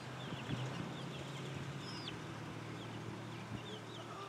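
Young chickens peeping: many short, high chirps scattered throughout, with one longer falling call about two seconds in, over a steady low hum.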